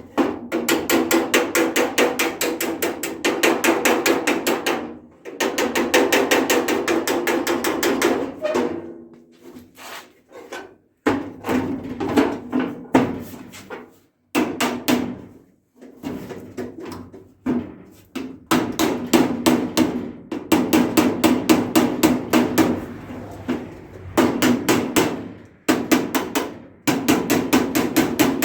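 Rapid, repeated hammer strikes in bursts of a few seconds with short pauses, knocking the rivets out of a toolbox's hinges.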